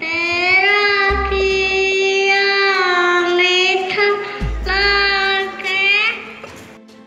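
A young child singing solo into a microphone in long, held phrases. The voice stops about six seconds in.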